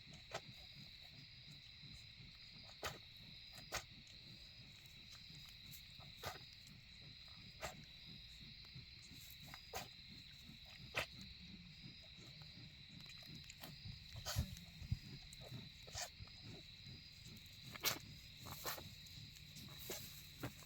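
Berkshire sow grunting low and softly during farrowing, with scattered sharp clicks and rustles from movement in the pen and a steady high-pitched hum in the background.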